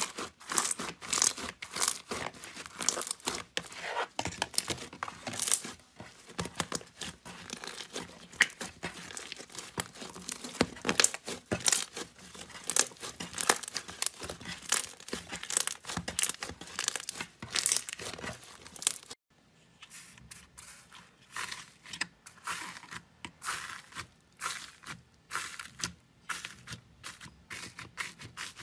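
Hands squeezing, stretching and pressing slime: a dense, steady run of sticky crackles and small pops. About 19 seconds in it cuts to a different slime, and the crackles become sparser and lighter.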